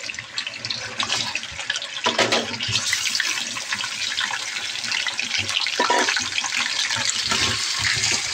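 Raw chicken pieces sizzling and spitting in hot oil and cumin seeds in an aluminium karahi. The sizzle grows louder about two seconds in as more pieces go into the oil, with a few brief louder surges as they are added and moved with a spatula.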